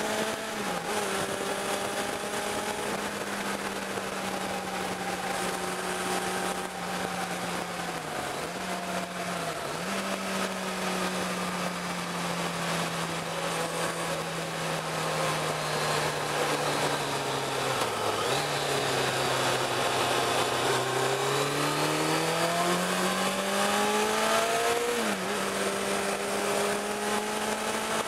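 Sport motorcycle engine running at steady revs under wind rush, the pitch dipping briefly at a few gear changes. About two-thirds through, the engine eases off and its pitch sinks, then it climbs back up as the rider accelerates.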